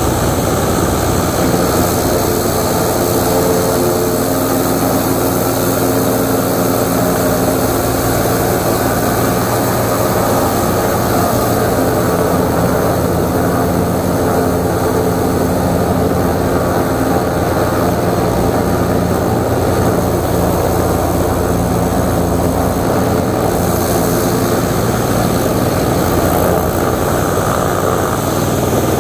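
13-horsepower high-pressure washer running steadily under load: a continuous engine drone with the hiss of its double-barrel water jets blasting plywood.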